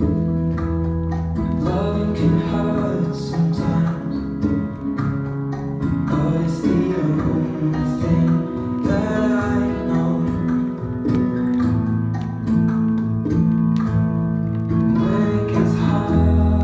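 Bachata song playing: plucked guitar and singing over a steady percussion beat.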